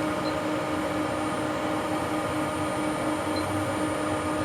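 Amplifier dyno test bench running a car amplifier into a 1-ohm load: a steady electrical hum with an even fan-like rush and no change in level.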